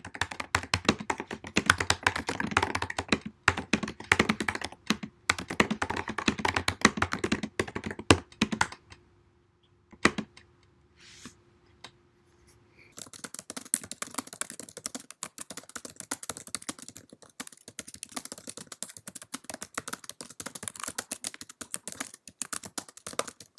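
Fast typing on a 2016 MacBook Pro's butterfly-mechanism laptop keyboard. After a pause of a few seconds broken by a few isolated clicks, fast typing resumes on a 2015 MacBook Pro's scissor-switch keyboard, whose keystrokes sound higher and thinner.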